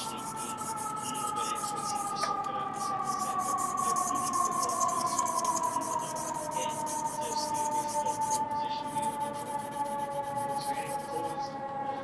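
Sandpaper rasping against a palo santo rosewood pen blank spinning on a lathe. Behind it, the lathe's whine falls slowly in pitch as the machine slows.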